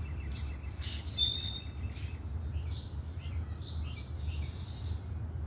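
Small birds chirping in short, repeated calls, with one louder whistled call about a second in, over a thin steady high-pitched tone and a constant low rumble.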